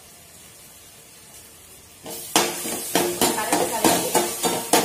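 A steel spoon knocks and scrapes soaked flattened rice (poha) off a stainless steel plate into a hot pan, the plate ringing at each stroke, several strokes a second. Under it the tempering in the pan sizzles. The scraping starts about two seconds in, after a quiet start.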